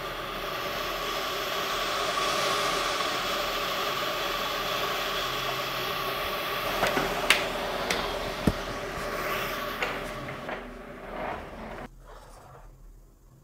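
Facial steamer running: a steady hiss of warm steam used to soften the skin before pore extraction. Three light clicks come around the middle, and the hiss drops away sharply about twelve seconds in.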